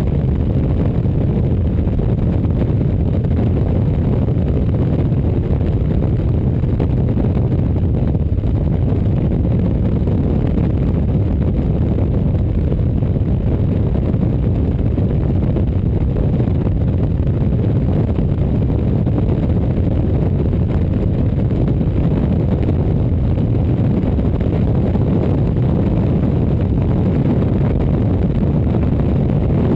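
Motorcycle cruising at a steady speed: engine, road and wind noise merge into an even, dull low rumble that never changes.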